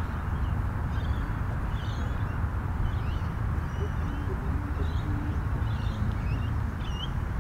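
Small birds chirping now and then in short high calls, over a steady low outdoor rumble.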